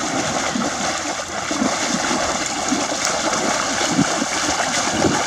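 Water splashing and sloshing without a break, a dense run of small irregular splashes, as water is stirred in a shallow pool.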